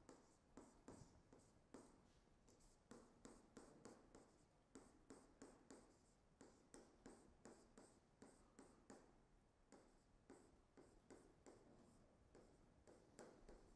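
Faint taps and scratches of a stylus writing on a tablet, a few short strokes a second.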